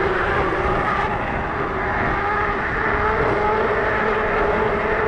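Bafang BBSHD mid-drive e-bike motor running under power, fitted with a steel gear in place of the nylon one: a steady whine whose pitch drifts a little with speed. It sits over a low rumble of fat tires on the road and wind on the microphone.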